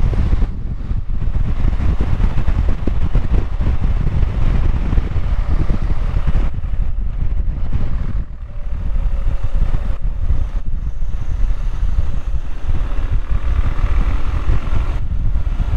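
BMW R1100GS air/oil-cooled boxer-twin engine running at road speed, mixed with heavy wind rush on the microphone. The sound briefly drops about eight seconds in.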